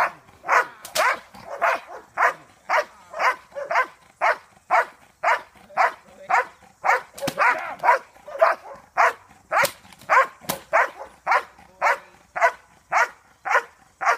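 Large dog barking aggressively in a steady rhythm, about two barks a second, with a few sharp cracks mixed in.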